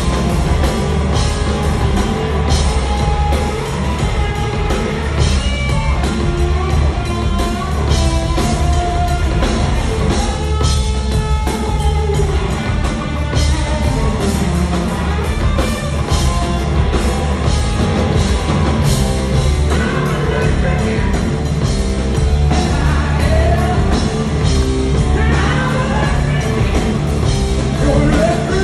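Rock band playing live and loud: electric guitar, bass and drums, with singing, recorded on a phone in the hall.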